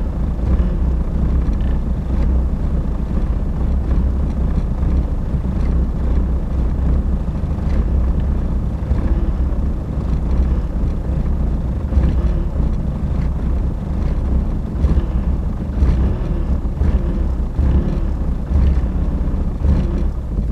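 Mercedes-Benz W202 C220d diesel engine running steadily, a loud low rumble with no change in speed.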